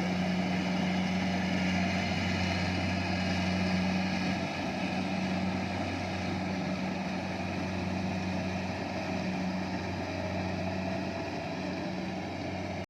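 Kubota rice harvester's engine running steadily at a constant speed, a little quieter from about four seconds in.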